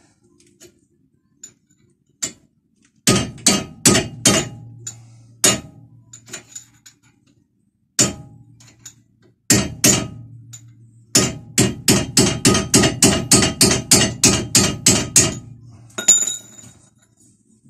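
Hammer blows on a small metal tube used as a drift, driving a seized brake caliper guide pin out of its bore. A few scattered strikes come first, then a fast, even run of about four blows a second.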